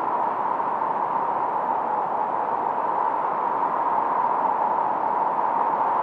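Noise from a 1972 Minimoog synthesizer run through a Roland RE-501 Chorus Echo: a steady, even rush, strongest around a single middle pitch, with the deep lows and the highest hiss filtered away.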